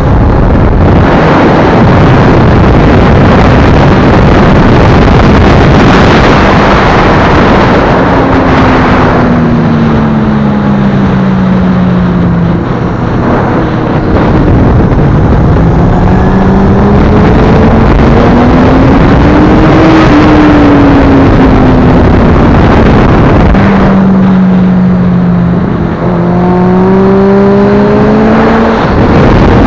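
Heavy wind rush on the microphone over a Honda CBF1000's inline-four engine on the move, its note dropping, climbing to a peak and dropping again, then climbing once more near the end.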